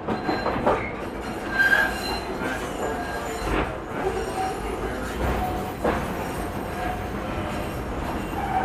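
1928 Canadian Car & Foundry streetcar running along its track, heard from inside the car: a steady rumble from the wheels and running gear, a few sharp knocks over the rails, and several short wheel squeals.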